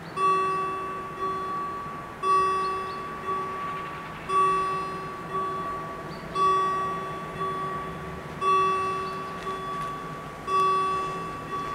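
Level crossing warning bells starting to ring about a quarter second in, striking about once a second with loud and softer strikes alternating, each ringing on and fading: the crossing has been activated for an approaching train.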